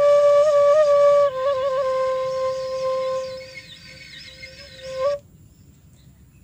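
Makeshift flute made from a metal pipe, blown as one held note with quick little flicks up and down in pitch. The note fades, swells again briefly and stops about five seconds in.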